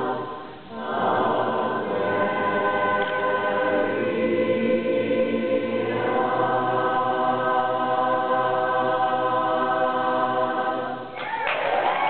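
Women's barbershop chorus singing a tag a cappella in close harmony, holding long chords with a short break about half a second in. The final chord ends near the end and applause breaks out.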